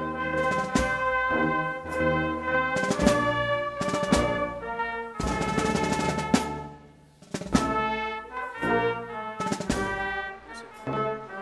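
Brass band with drums playing ceremonial music: held brass chords over regular drum strokes, with a brief break about seven seconds in.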